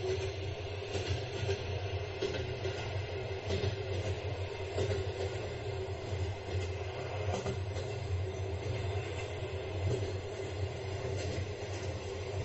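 Train carriage running along the track: a steady low rumble with faint clacks of the wheels over the rail joints every second or so.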